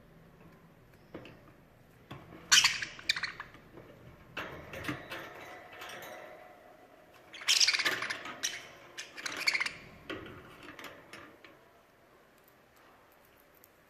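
Pet bird calling in short, harsh squawks and chirps, in two main bouts: a brief cluster about two and a half seconds in, and a longer run from about seven and a half to ten seconds, with fainter calls between them.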